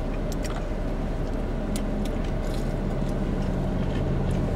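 Steady low hum of a car idling, heard from inside the cabin, with a few faint small clicks.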